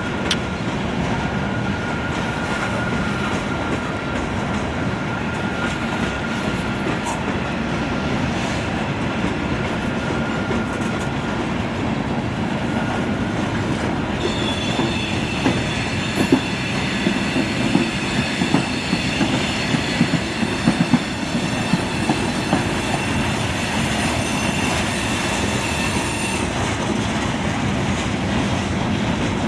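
Loaded coal train of aluminum hoppers rolling past with a steady rumble of wheels on rail. About halfway in a high, multi-toned wheel squeal starts and holds until near the end, with a few sharper clanks along the way.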